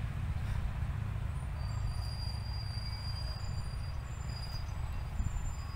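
Distant road traffic: a steady low rumble, with a faint thin high squeal held for a few seconds in the middle.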